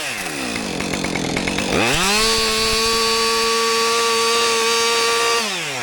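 Two-stroke chainsaw idling, then revved up about two seconds in and held at a steady high speed for about three and a half seconds before dropping back to idle near the end.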